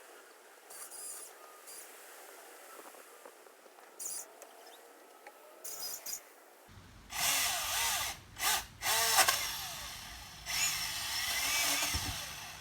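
Milwaukee M18 16-inch battery chainsaw run in bursts while cutting small pine branches: a few short, fainter squeezes of the trigger in the first half, then louder runs of a second or two from about seven seconds in, the motor's whine sagging and recovering in pitch as the chain bites into the wood.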